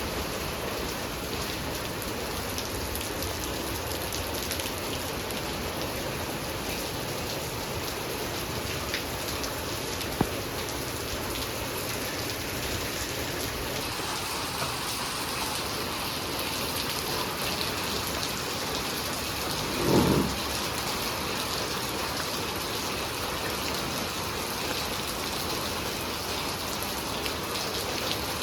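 Steady heavy rain falling, with a single sharp tick about a third of the way in and a brief low thump about two-thirds through.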